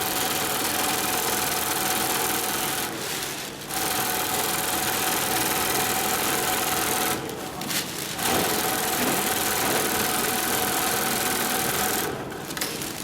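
Dürkopp Adler 72525-101 long-arm zigzag industrial sewing machine running at speed with a steady whine. It stops briefly twice, about three and seven seconds in, and stops near the end.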